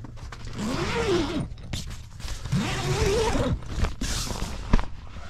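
A zipper pulled in two long strokes, each rising and then falling in pitch, followed by a sharp click near the end.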